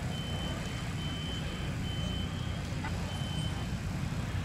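A vehicle's reversing alarm beeping on and off, a thin high tone about once a second, over a steady low rumble.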